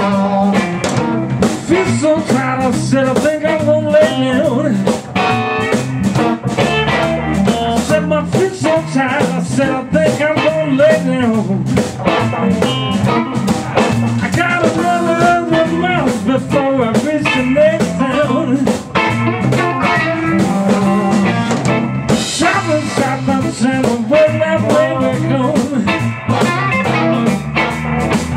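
Live blues band: a Stratocaster-style electric guitar played through a Longhorn valve amp over a drum kit, with sung vocals at times.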